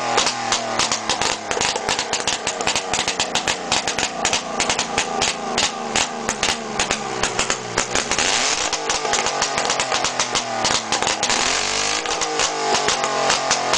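Early motorcycle engine running at speed, a fast uneven beat of firing strokes whose pitch sweeps up and down as it revs, about two-thirds of the way through and again near the end.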